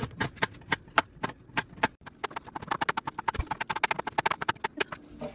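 Knife chopping vegetables on a cutting board. It starts with steady strokes about four a second, then breaks into a fast run of rapid chops from about two seconds in.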